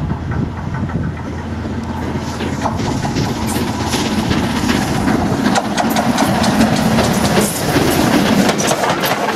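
LNER K4 three-cylinder 2-6-0 steam locomotive 61994 'The Great Marquess' approaching and running past with its train, growing louder as it nears. From about two seconds in, a dense, irregular clatter of wheels over the rails builds up.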